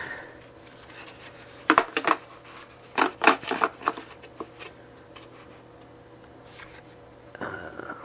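Plastic vacuum filter parts, a pleated cartridge filter and a perforated plastic filter housing, handled and fitted together: sharp clicks and knocks in two clusters, about two seconds in and around three seconds in, with lighter taps and plastic rubbing after.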